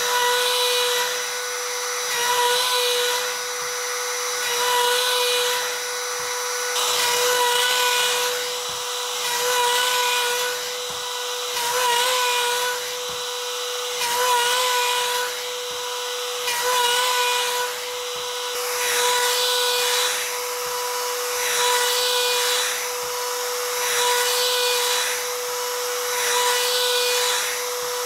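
Trim router running with a steady high whine, its bit cutting across the face of a wooden board in repeated passes to flatten it. The cutting noise swells and eases about every two and a half seconds as each pass goes over the wood.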